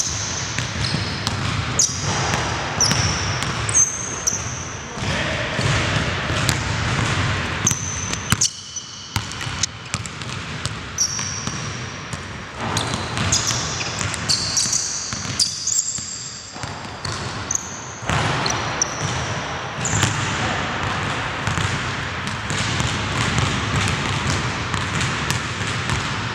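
Basketball being dribbled and bounced on a hardwood gym court, with sneakers squeaking on the floor in short, high-pitched squeals.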